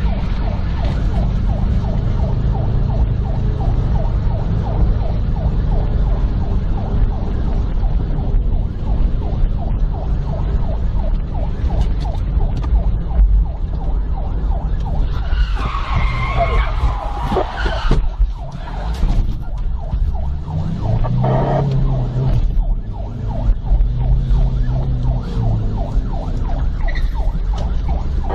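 Police car's engine and road noise from inside the cabin during a high-speed pursuit, under a siren yelping rapidly over and over. For a couple of seconds around the middle a louder, higher squeal rises over it.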